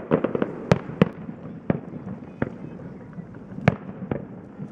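Firework shells bursting in a display: a quick run of crackles at the start, then single sharp bangs at irregular intervals of roughly a second.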